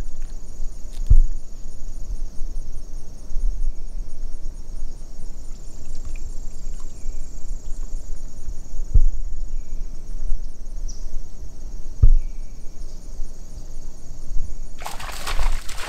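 Steady high-pitched chorus of insects chirring in the marsh, over a low rumble with a few dull thumps. Near the end a loud burst of rustling covers it.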